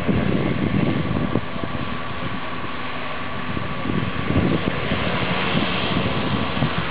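Twin Pratt & Whitney PT6A turboprop engines of a Beechcraft King Air C90A running as it taxis: a steady turbine whine over a dense rushing noise, with low rumbling that comes and goes, strongest in the first second and again about four seconds in.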